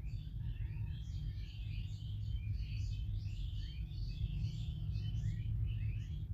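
Many small birds chirping in quick, overlapping short calls, over a steady low hum.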